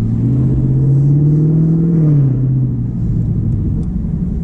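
Chevrolet Camaro LT1 V8 exhaust heard from inside the cabin as the car pulls away under light throttle. The engine note rises in pitch for about two seconds, then drops and settles.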